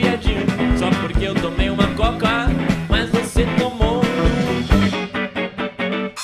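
Instrumental passage of a ska-rock song: steady drum beat under electric guitar playing bent notes. The band thins out about five seconds in, with only short hits left just before the music stops.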